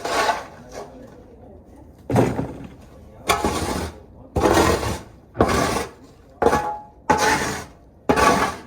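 Shovel scooping and scraping manure and bedding from a horse stall, about eight rough scrapes coming roughly once a second.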